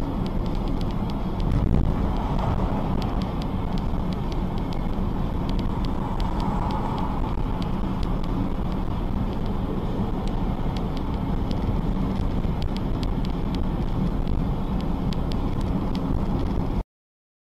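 Car's cabin road noise from a moving car: a steady low rumble with scattered light ticks, cutting off suddenly near the end.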